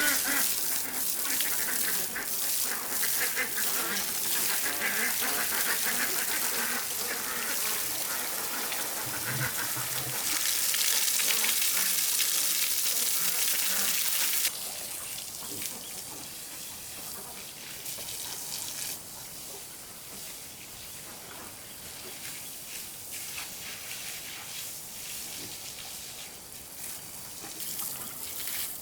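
Water rushing and splashing, with ducks quacking over it. About halfway through the sound drops suddenly to quieter splashing and trickling.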